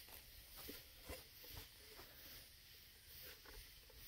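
Near silence: a faint background hiss with a few soft, scattered ticks.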